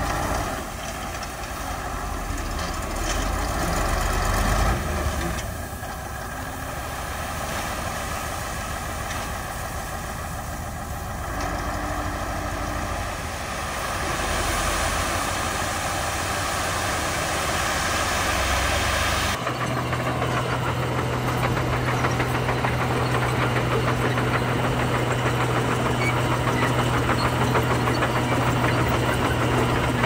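Heavy diesel engine of a dump truck running while its raised bed tips out a load of gravel. About two-thirds through, the sound cuts abruptly to a Komatsu D41P bulldozer's diesel engine running steadily, with a low hum, as it pushes gravel.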